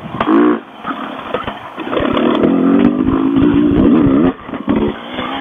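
Dirt bike engine revving at close range as the rider works the throttle on the trail, the note rising and falling and held high through the middle, easing off briefly about four seconds in.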